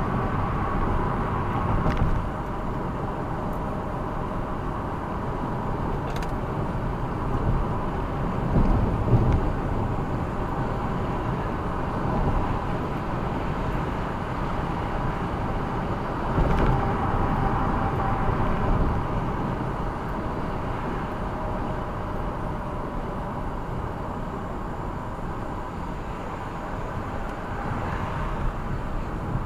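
Steady road and engine noise of a car driving, heard from inside the cabin, with a couple of louder bumps, about nine and sixteen seconds in.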